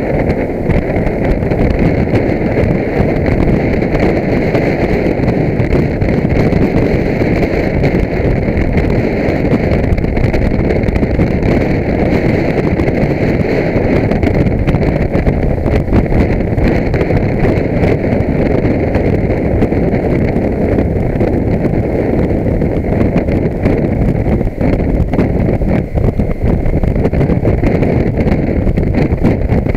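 Motorcycle riding at a steady road speed, heard mostly as loud, steady wind rush over a bike-mounted camera's microphone.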